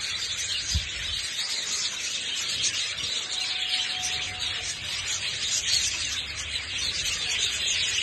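Many budgerigars chattering and chirping at once, a dense, steady high-pitched twittering.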